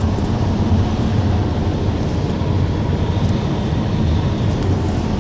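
Steady low rumble of tyre and engine noise inside a car's cabin while driving at highway speed.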